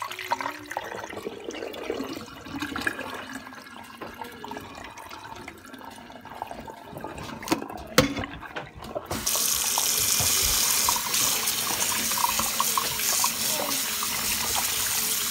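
Raw shrimp being swished by hand in a steel bowl of water in a sink, with irregular splashing and a sharp knock about eight seconds in. About nine seconds in, a kitchen tap is turned on and runs steadily and loudly into the bowl.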